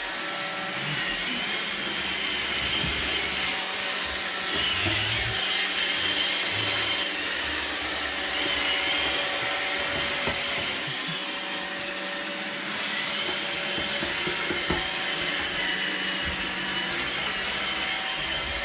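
iRobot Roomba robot vacuum running steadily, its motor and brushes giving a continuous hum with a wavering high whine, and a few faint knocks scattered through.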